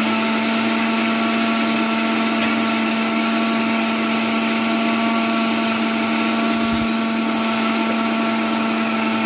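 Electric mixer grinder running steadily at full speed, blending tender coconut flesh with coconut water in its steel jar. The motor cuts off at the very end.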